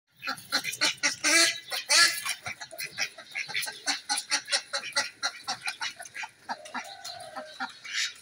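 Domestic duck quacking loudly in a fast, unbroken series of harsh calls, about three or four a second, while a dog pins it to the ground: alarm calls of a bird under attack.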